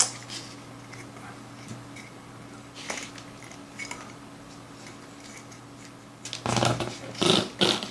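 Small plastic clicks and clatter from handling the opened case and circuit board of a smart garage door controller, a few light ticks at first and a louder burst of handling near the end, over a steady low hum.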